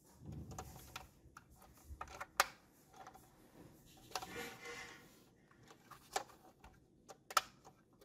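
Plastic toy ambulance being handled and turned in the hands: irregular clicks, knocks and rubbing of hard plastic, with a few sharp clicks and a short scratchy scrape about halfway through.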